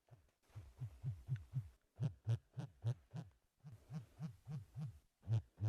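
ASMR mouth sounds made close to the microphone: a run of short, soft, low pulses, about three to four a second, broken by a few brief pauses.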